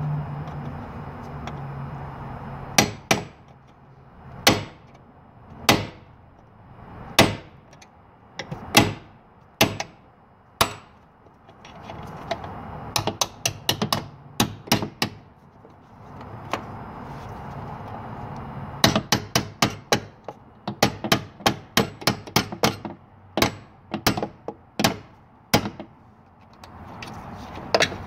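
Hammer striking a drive pin punch to knock the ground-flush steel hinge pin out of a Toyota Tundra door hinge: single sharp metal blows a second or so apart at first, then bursts of quick repeated strikes.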